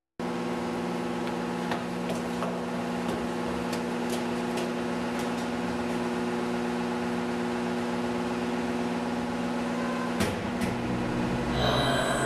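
A steady hum made of several low steady tones, with scattered faint clicks. One tone drops out about ten seconds in, and a brighter, noisier sound joins near the end.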